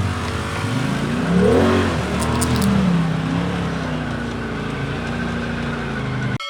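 Polaris RZR XP Turbo side-by-side's turbocharged twin-cylinder engine revving up and easing back off while driving on a trail. The sound cuts off abruptly near the end, replaced by a ringing chime-like tone.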